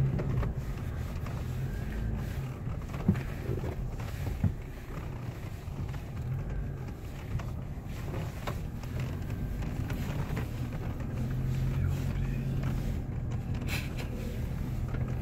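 Car engine running and tyres rolling over a rough dirt track, heard from inside the cabin as a steady low hum, with two short sharp knocks about three and four and a half seconds in.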